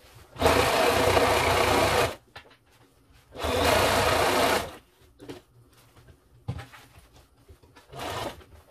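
Sewing machine stitching through leatherette in two runs, about a second and a half each, stopping between them with the needle down while the fabric is turned. Light handling noises follow, with a short, softer burst near the end.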